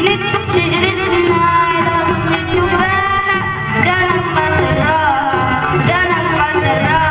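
An Arabic song sung over instrumental accompaniment, the melody sliding up and down in pitch.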